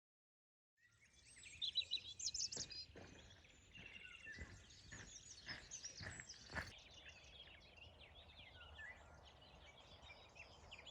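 Small birds chirping and twittering, starting about a second in. A row of soft thuds about twice a second runs through the first half.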